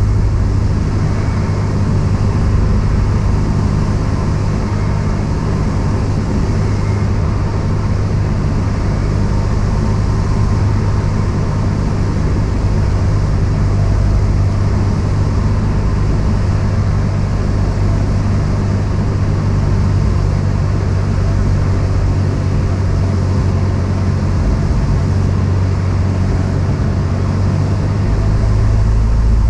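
Cessna 172's piston engine and propeller running steadily, a constant low drone.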